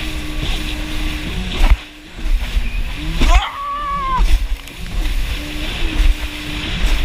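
Yamaha jet ski engine running at speed, its pitch shifting as throttle and load change, with water splashing against the hull. The engine sound drops away briefly twice, and a higher rising-and-falling whine comes in about three seconds in.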